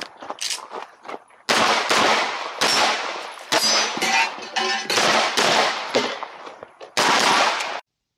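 SIG P320 X-Compact pistol on an Icarus frame with a ported slide firing a string of shots, many in quick pairs, each with a ringing tail; the firing cuts off suddenly near the end.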